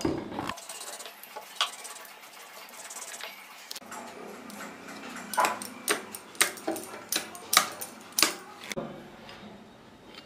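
Scattered light taps and clicks on a wooden board as rounds of rolled dough are cut out and handled, most of them from about five to eight seconds in.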